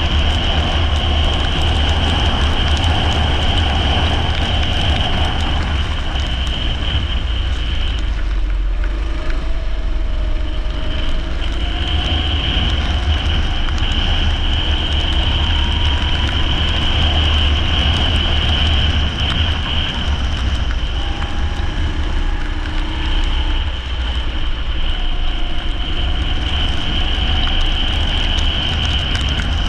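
Leisure karts running at racing speed on a wet track: a steady engine drone with a constant high whine, and the engine note rising and falling as the karts speed up and brake.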